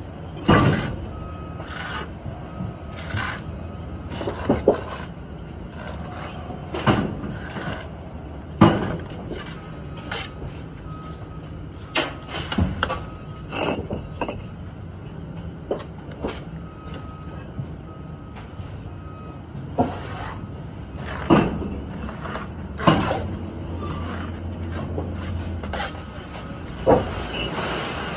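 Bricklaying with a steel trowel: sharp, irregular clacks and scrapes as the trowel knocks and cuts mortar against the bricks, one every second or two. A steady low hum runs underneath.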